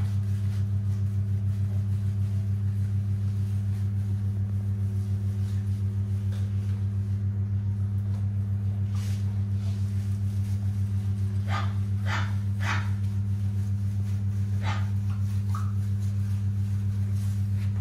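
Labrador retriever puppy giving a few short yips and whimpers while being washed, three close together about two thirds of the way through and two more shortly after, over a steady low hum.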